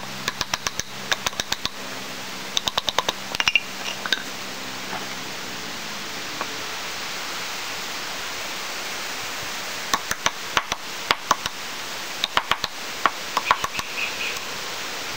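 Rapid runs of sharp wooden knocks, several a second, in the first few seconds and again near the end: a small Swiss Army folding knife being batoned, its spine struck with a stick to drive the blade into a piece of poplar and split it. A steady hiss lies under the knocks.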